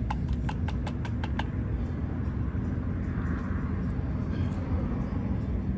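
Steady low rumble, with a quick run of about eight sharp taps in the first second and a half.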